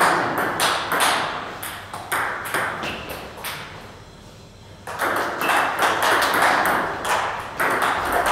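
Table tennis ball clicking sharply off bats and table in quick succession during rallies, with a lull of about a second and a half in the middle before the hits resume about five seconds in.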